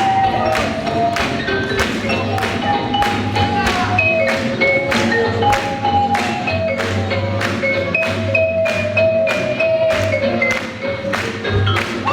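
Swing jazz music playing with a steady beat of about two strokes a second under held melody notes.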